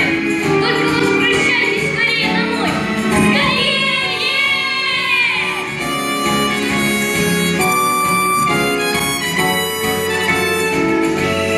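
Children's pop ballad duet sung into handheld microphones over a recorded backing track. A child's voice holds a long, wavering note about four seconds in, after which the backing music carries on with little singing.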